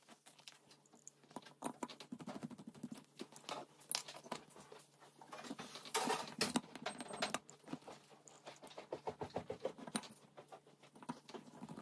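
Hand screwdriver driving small M3 screws into a stepper motor through a metal mounting plate: irregular light clicks and scrapes of the tip in the screw heads and of metal parts being handled.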